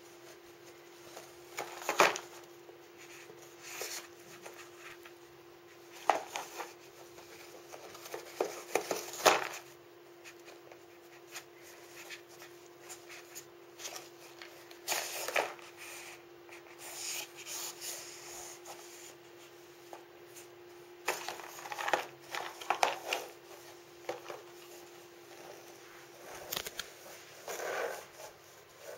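A cat rummaging in a small paper box for hidden treats: irregular rustling, crinkling and scraping as the box is pushed about on a wooden floor, with sharp knocks now and then. A steady faint hum runs underneath.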